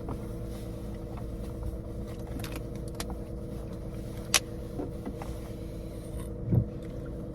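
Car engine running steadily with a low hum, heard from inside the cabin; a sharp click about four seconds in and a low thump near the end.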